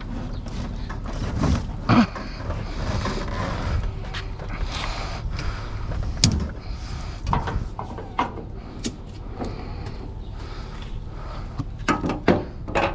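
Scrap being handled and loaded onto a pile: irregular knocks, clanks and scraping, with a few sharper bangs.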